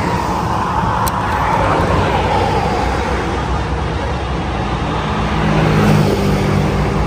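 BMW G 310 RR motorcycle's single-cylinder engine running through an aftermarket exhaust, a steady low engine note under a wash of wind and road noise.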